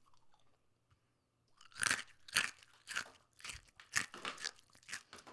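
Crisp food being chewed, with loud crunches about twice a second, starting after a quiet second and a half.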